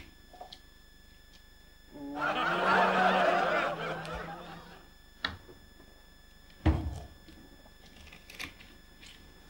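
Studio audience laughter swelling for about two seconds, then fading. A single sharp thump follows a few seconds later.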